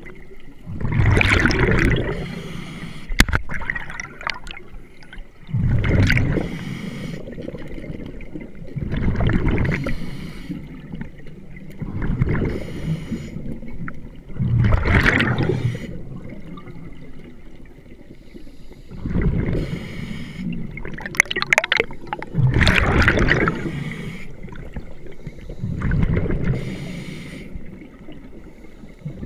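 Scuba diver breathing through a regulator underwater: exhaled bubbles gurgle past in bursts about every three to four seconds, about eight breaths.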